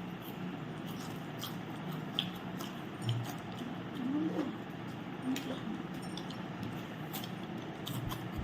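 Kurkure snacks being eaten without hands: scattered short crunching and crinkling clicks over a steady low hum, with two brief hummed voice sounds near the middle.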